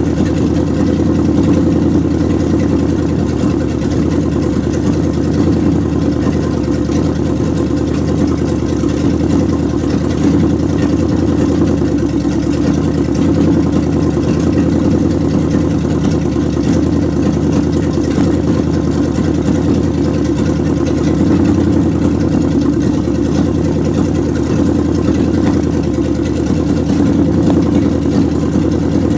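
1929 Chrysler engine idling steadily while it warms up, with an even, unchanging running note.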